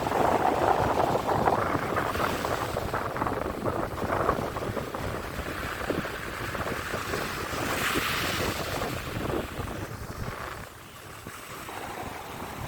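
Sea waves breaking and washing up the shore, with one wave surging in louder about two-thirds of the way through, and wind buffeting the microphone.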